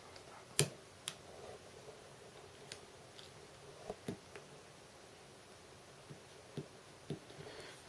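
Fingertips and fingernails tapping and pressing on a glass screen protector as it is settled onto a phone screen. There are a handful of short, sharp clicks, the loudest about half a second in, over a quiet background.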